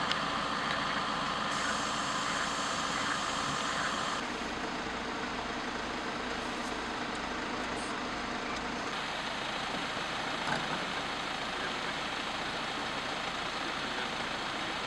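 Vehicle engine idling steadily with a low, even throb under a wash of outdoor noise. The background noise changes abruptly about four and nine seconds in.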